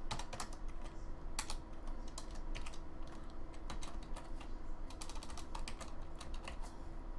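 Computer keyboard typing: sharp keystroke clicks in short irregular bursts as code is typed.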